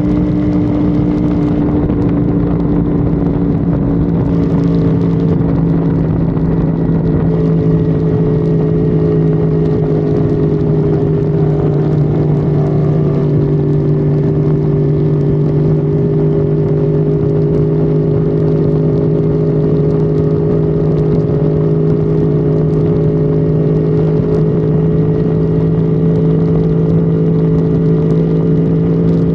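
Honda Civic FD's engine running at steady high revs at highway speed, its pitch easing slightly in the first few seconds and then holding almost constant, over road and wind noise.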